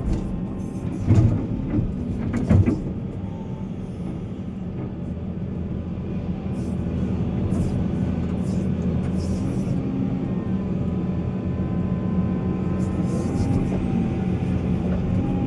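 Heavy diesel earthmoving machinery running steadily, with two sharp clunks about one and two and a half seconds in, and the engine growing slowly louder.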